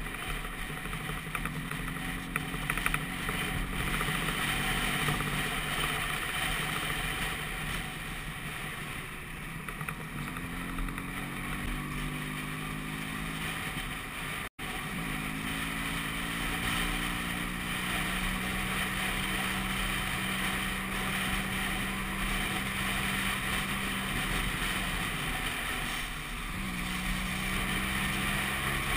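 Vespa PX200's two-stroke single-cylinder engine running while riding, its pitch rising as it accelerates and then holding steady at cruising speed. The sound cuts out for an instant about halfway through.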